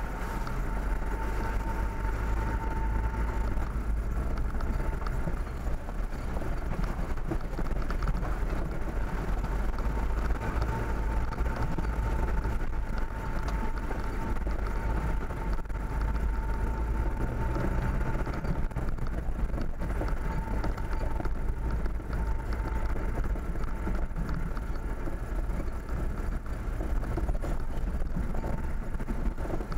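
Vehicle driving slowly along a rough dirt track, heard on board: a steady low engine and road rumble, with a thin whine that comes and goes.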